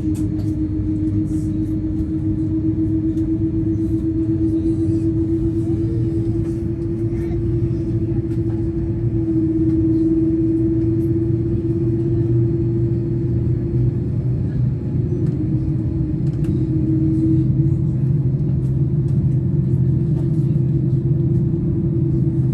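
Boeing 787 cabin noise during engine start: a steady low rumble with a constant hum. A deeper drone grows stronger and a little louder from about halfway through as the engine spools up.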